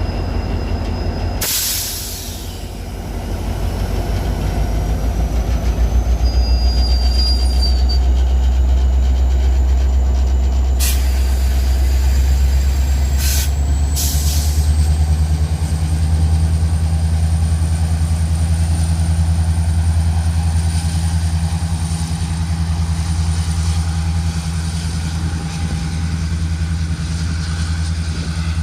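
Train rolling past with a steady deep rumble and a thin, slowly rising high-pitched wheel squeal. A few sharp clanks come about a second and a half in and again around eleven to fourteen seconds in.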